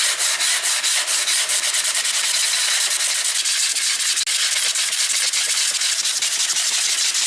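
Steady rasping of a Tactix block plane's sole being rubbed back and forth on 400-grit sandpaper, lapping the sole flat by grinding down the high spots.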